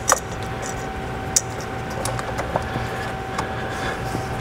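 Hands handling and routing a braided rubber hose in an engine bay, with light rustling and a few small ticks, and one sharp click about a second and a half in. Under it runs a steady background hum with a faint constant tone.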